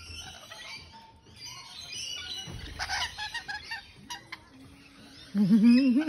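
Rainbow lorikeets chattering in short high squeaks while feeding. Near the end a much louder, low, wavering voice-like sound starts.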